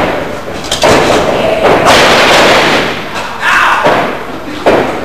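Several heavy thuds of wrestlers' bodies hitting the ring canvas and boards, with noisy ringing tails in between.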